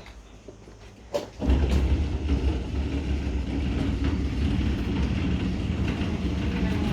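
A steady low rumble that starts suddenly about a second and a half in, after a few faint clicks.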